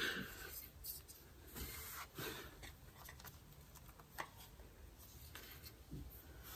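Faint rustling and a few small clicks from hands handling the stator's wiring loom and its plastic connector plug.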